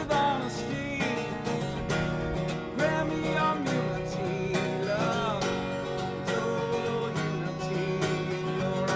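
Acoustic guitar strummed steadily, with a voice singing phrases over it now and then: a live singer-songwriter song.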